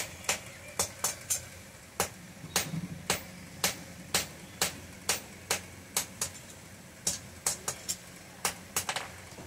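Hand hammer striking red-hot iron on a small steel anvil, forging a chisel: a steady run of sharp blows at about two a second, some coming in quick pairs.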